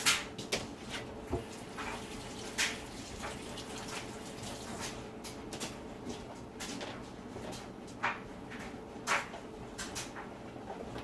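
Scattered knocks, clicks and rustles of objects being handled while a fresh Brillo pad is fetched, with a faint steady hum through the first half.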